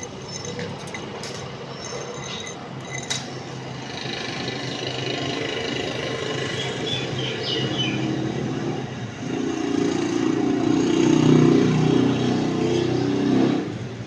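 Workshop machinery running with a steady low hum and a few sharp clicks in the first seconds, growing louder and harsher for about four seconds near the end before dropping back.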